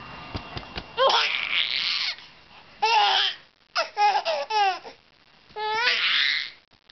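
Baby girl laughing hard in four bouts, each a quick run of short falling 'ha' notes, so hard that it almost sounds like crying.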